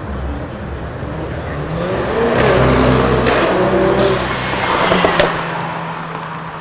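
Mercedes-AMG A-class hatchback's turbocharged four-cylinder accelerating hard past, its engine note rising in pitch, with a few sharp cracks. About five seconds in it settles to a steady drone as it pulls away.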